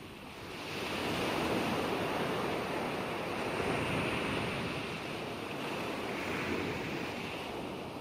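Ocean surf: waves breaking and washing up a shore, swelling about half a second in and then holding as a steady wash.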